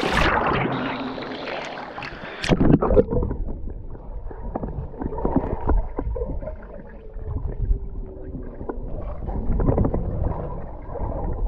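Water splashing close by, then about two and a half seconds in the sound turns muffled and low as the microphone goes under the surface. Swimmers are heard from below: dull rumbling and scattered knocks, with no high sounds.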